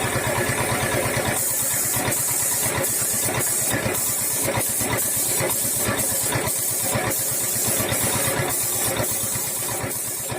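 Small engine idling steadily, with a high hiss that keeps cutting in and out.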